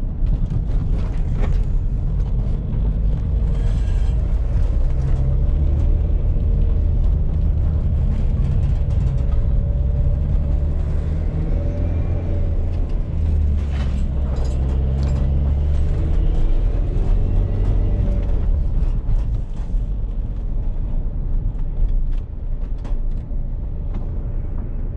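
Van engine running and road noise while driving, a steady low rumble whose engine note shifts about halfway through.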